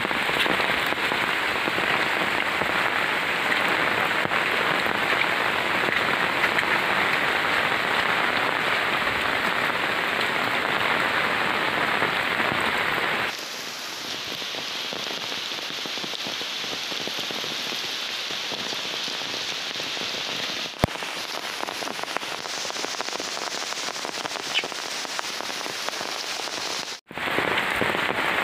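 Steady heavy rain falling on an umbrella held over the microphone. About halfway through the rain noise drops to a softer, even hiss, with a single sharp click a few seconds before the end.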